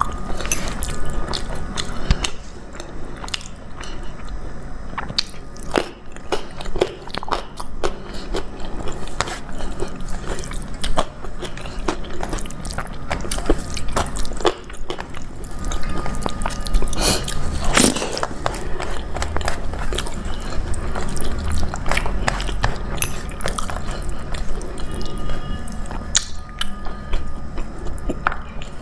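Close-miked eating: a person chewing and biting a dal-rice and vegetable meal, with irregular wet mouth clicks and smacks and occasional crunches.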